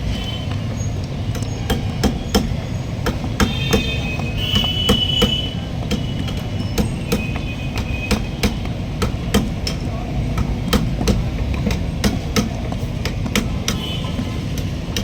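A 10-litre can of urea (diesel exhaust fluid) being emptied into a vehicle's DEF tank, with irregular sharp knocks about two or three a second over a steady low rumble.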